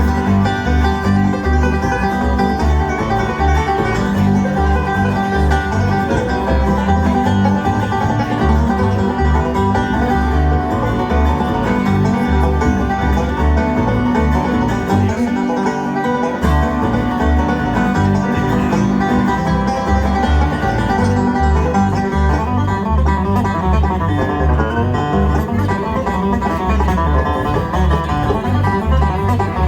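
Live bluegrass band playing without vocals: banjo and guitar picking over a rhythmic bass line. The bass thins out briefly about halfway through.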